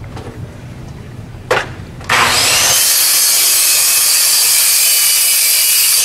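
A knock about a second and a half in, then a circular saw starts suddenly about two seconds in and runs at full speed, cutting through a wooden board on a 45-degree mitre.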